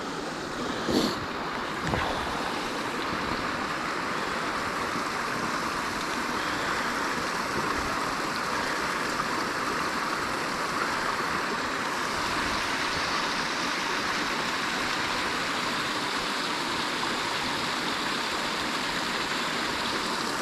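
A small creek waterfall spilling over a stacked-stone dam: a steady rush of falling water, with a short bump about a second in.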